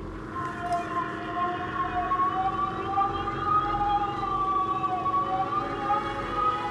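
Synthesized sci-fi sound effect of a glowing headset device being switched on for a test. A steady electronic hum carries two wavering tones that come in about half a second in and slowly rise and fall, like a siren.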